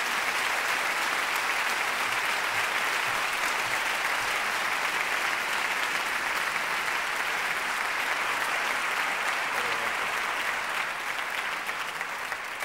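Concert audience applauding steadily, the clapping easing off slightly near the end.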